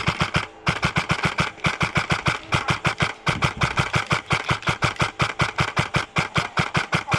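Airsoft gun firing long strings of rapid shots, about seven to eight a second, with short breaks about half a second in and about three seconds in.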